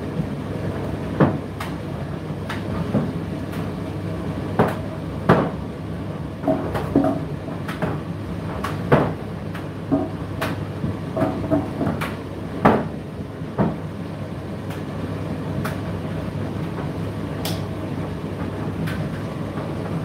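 Indesit IDC8T3 8 kg condenser tumble dryer running: a steady low hum from the motor and turning drum, with irregular knocks and clunks as the load tumbles inside, several a second at times.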